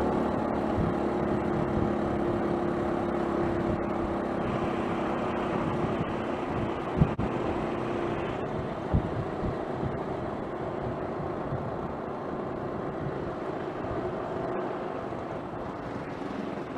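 Honda Fusion scooter's single-cylinder engine running at speed under wind and road noise, gradually easing off. Two sharp knocks come about seven and nine seconds in.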